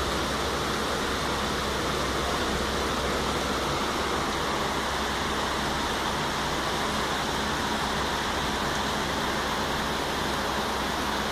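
Heavy rain falling, a steady even hiss.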